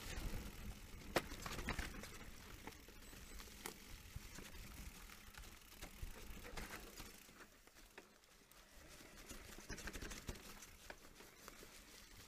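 Specialized Turbo Levo electric mountain bike rolling down a rough dirt trail: tyres crunching over leaves and stones, with the frame and chain rattling and sharp knocks from bumps, the loudest about a second in.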